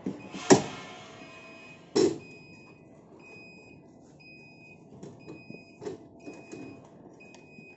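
Elektra SL650 wheelchair lift's warning beeper sounding about once a second, with two loud metal clunks near the start as the platform's safety flap is unlocked and dropped down to form a ramp. Lighter knocks follow as the wheelchair rolls off the platform.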